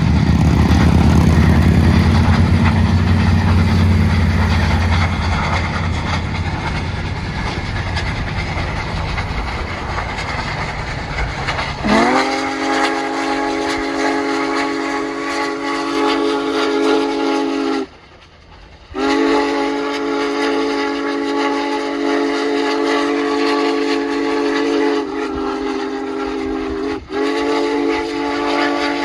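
Union Pacific Big Boy No. 4014 steam locomotive working hard upgrade, its exhaust beats running together in a fast low rumble. About twelve seconds in, its chime steam whistle sounds with a short rising onset: a long blast, a break of about a second, then another long blast with a brief gap near the end.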